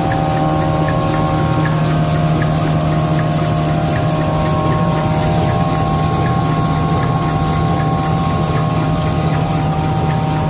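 Laminated V-fold paper towel machine running steadily, with a constant hum and whine and a regular fast high ticking.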